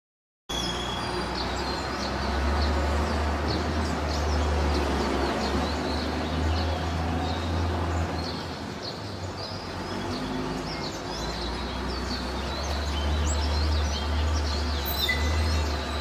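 Many short bird chirps over a steady low rumble.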